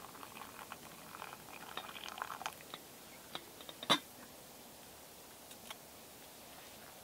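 Hot water pouring from a GSI stainless steel camping kettle into a steel mug, trickling and splashing for about two and a half seconds. About four seconds in there is a single sharp metallic clink as the kettle is set down on a wooden stump.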